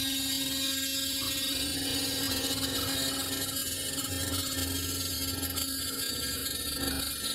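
CNC router's high-speed electric spindle running steadily with its bit cutting a white foam block: a constant hum under a dense high whine and hiss from the cut.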